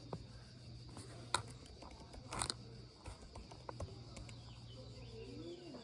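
A steady, high-pitched chorus of insects, with several sharp clicks and knocks over it, the loudest about one and a half and two and a half seconds in.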